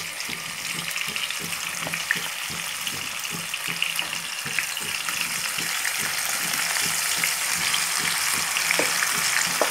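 Marinated chicken frying in hot oil and ghee in a wok, a steady sizzle that grows louder as more chicken is added, with a few brief clicks.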